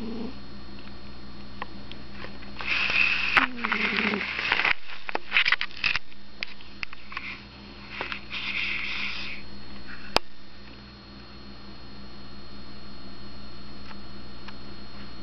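A sleeping cat snoring: two loud, raspy breaths about five seconds apart, the first trailing off in a low falling tone, with a few small clicks between them and a sharp click later. A steady electrical hum runs underneath.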